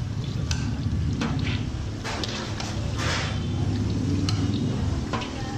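Hot oil bubbling and sizzling in a large iron kadai during deep-frying, over a steady low rumble, with sharp metallic clicks and scrapes of a perforated skimmer against the pan. The sizzle swells twice, about two and three seconds in.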